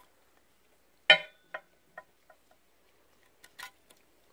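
A small hard object drops onto a glass tabletop: one sharp ringing clack about a second in, then a few quickly fading bounces at shrinking gaps. Two more light clicks come near the end.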